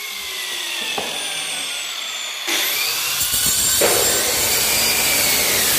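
Handheld angle grinder with a cutting disc, its motor whine falling as it coasts with the trigger released. About two and a half seconds in it spins up again with a rising whine, and from about four seconds the disc bites into a ceramic tile, adding a harsh grinding rasp.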